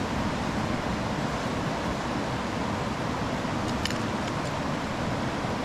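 Steady rush of river water flowing over boulders and rocks in a shallow riffle.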